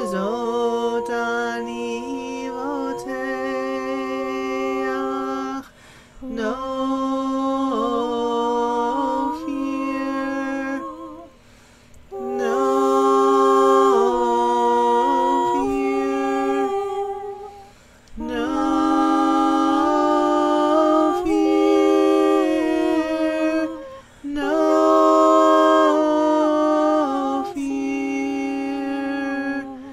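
Two women's voices singing a chant a cappella in harmony, in phrases about six seconds long with short breaks between them.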